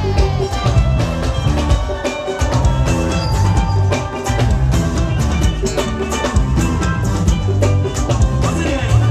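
Live highlife band music: drum kit, hand drums and bass keeping a steady dance beat under guitar lines.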